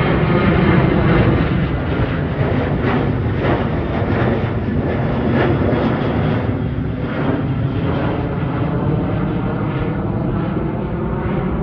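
Twin-engine jet airliner's engines roaring loudly as it climbs out overhead after takeoff, the rumble slowly fading as it moves away.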